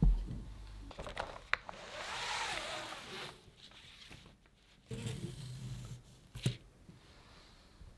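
Kitchen handling sounds: a heavy thump at the start, sharp clicks and a scraping rustle from a spatula working in a glass mixing bowl, then a knife trimming a sponge cake on a wooden cutting board, with one sharp click near the end.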